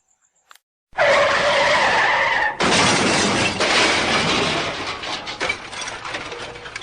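Car crash sound effect: tyres screech for about a second and a half, then a loud crash of impact that slowly dies away with scattering debris.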